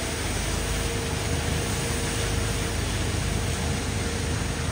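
Steady rumble and hiss of a vehicle driving along a road, with a faint steady hum in the first half.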